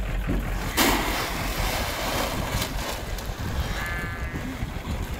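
Pellet feed poured from a sack into a metal trough: a sudden rushing rattle about a second in that tails off over the next second or so. A little later an alpaca gives a short, high hum.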